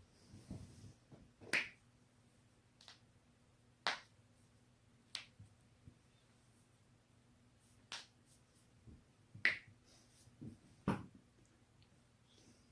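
Human joints being cracked: about seven sharp pops at irregular intervals, one to two seconds apart, with a few softer low thuds between them.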